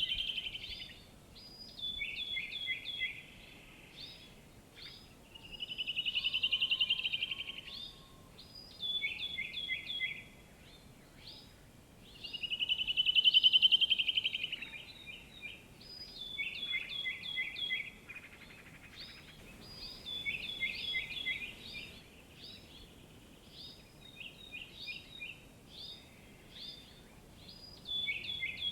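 Songbirds singing in repeated short phrases of quick, high notes. Two longer rapid trills swell and fade, about six seconds in and again about thirteen seconds in; the second is the loudest.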